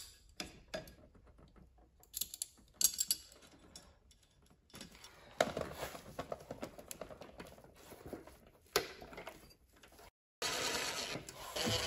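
Clicks and rattles of a steel exposed-work cover and receptacle being fitted onto a metal 4x4 electrical box, with a cordless drill-driver driving the cover screws in the middle. A louder steady noise comes in during the last second or so.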